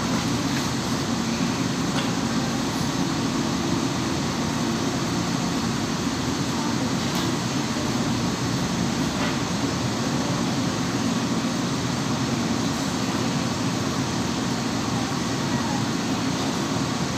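Steady mechanical background hum and rumble, even in level, with a few faint light clicks.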